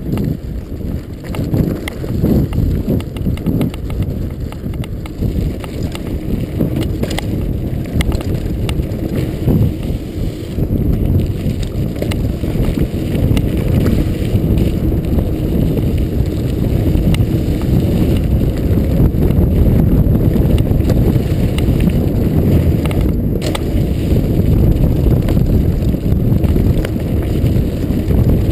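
Norco Storm hardtail mountain bike running fast down dry dirt singletrack: its 26x2.5 Continental Mountain King tyres rumble over the ground and the bike rattles and clatters over bumps, with wind buffeting the microphone. It grows louder about ten seconds in.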